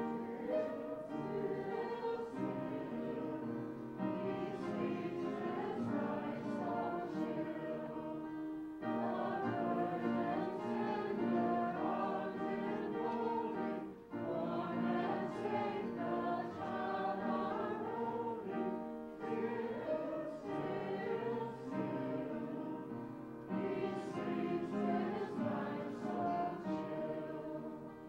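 A choir singing, in phrases several seconds long with short breaks between them.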